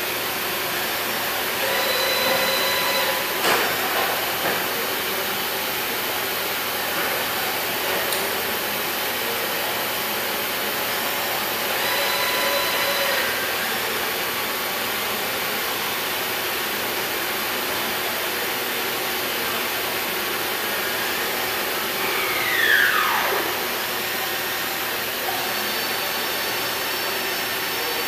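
Milltronics HMC70 CNC horizontal boring mill running under power, a steady rushing machine noise. Brief whines come twice, about 2 and 12 seconds in, with a knock about 3.5 seconds in, and a quick falling whine near the end is the loudest sound.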